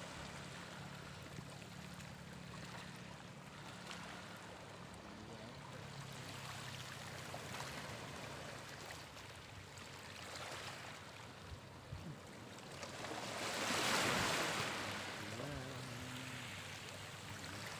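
Small waves washing against a rocky shoreline, with one louder wash swelling and fading about fourteen seconds in.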